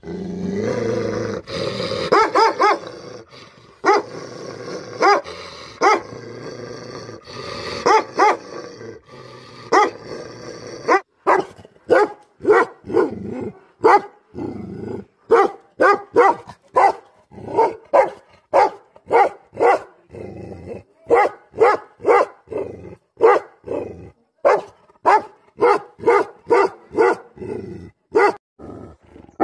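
Tibetan Mastiff growling in drawn-out calls for about the first ten seconds, then barking steadily, about two barks a second.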